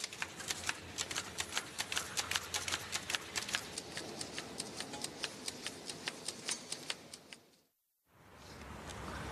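Rapid, irregular light clicking and clinking, several clicks a second, that fades away about eight seconds in.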